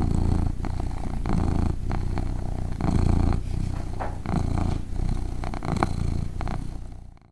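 Domestic cat purring steadily, the rumble swelling and easing with each breath in and out about every second and a half, with a few small clicks over it.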